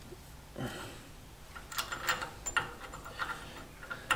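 Scattered light clicks, taps and rubbing of metal machine parts being handled and fitted by hand, irregular and without rhythm.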